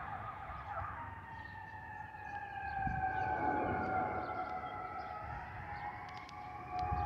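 Airbus A320-212 overhead, whistling from the fuel over-pressure protector (FOPP) vents under its wings. It is a howling tone pair, one steady and one sliding slowly down in pitch and then rising again near the end, over the low rumble of its jet engines.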